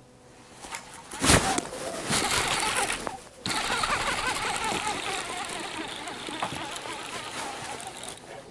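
An angler setting the hook on a bass from a bass boat's deck and fighting it: a sharp thump about a second in, then a steady rush of noise that dips briefly around three seconds and carries on to the end.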